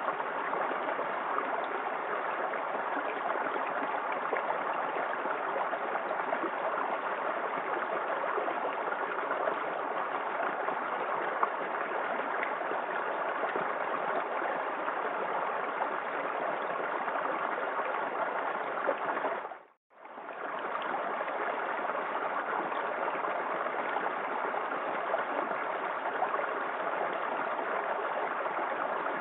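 Small waterfall in a forest creek, water splashing and running steadily. About two-thirds of the way through, the sound dips briefly to near silence and fades back in.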